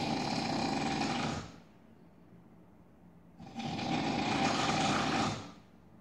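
A sleeping man snoring loudly, with a harsh, buzzing rasp like a power tool: one long snore ending about a second and a half in, then another of about two seconds starting a little past the halfway mark.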